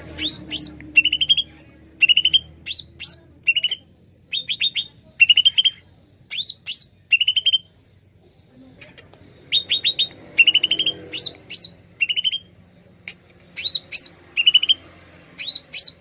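Cucak ijo (green leafbird) singing: short bursts of rapid chirping notes and upward-sweeping whistles, repeated with brief gaps, with a pause of about a second and a half midway.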